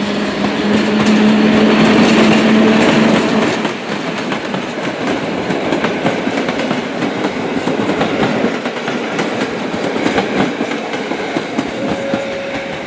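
Train running on rails, wheels clattering over the track, with a steady hum for the first few seconds that then gives way to the clatter.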